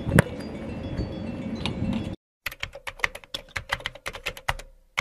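A football struck in a shot: one sharp kick, the loudest sound, with open-air background. About two seconds in, the sound cuts out, and then comes a typing sound effect: a fast run of keyboard clicks with short pauses.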